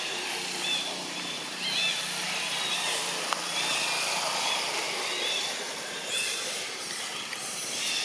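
Outdoor tree-canopy ambience: a steady hiss with small birds chirping again and again in short, arched notes.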